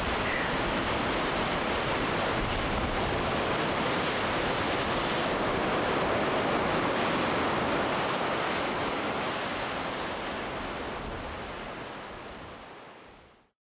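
Steady rush of sea surf and wind, fading out over the last few seconds.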